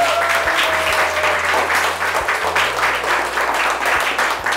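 A small audience of children and adults applauding: dense clapping that keeps up steadily. Over the first second and a half a single held tone slowly falls in pitch.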